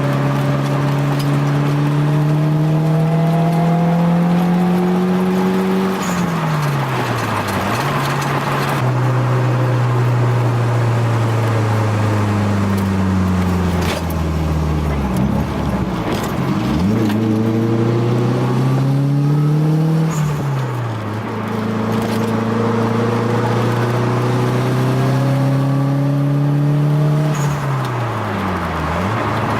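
Nissan 240SX's turbocharged SR20DET four-cylinder engine pulling through the gears. Its pitch climbs steadily, then drops sharply at each of several upshifts.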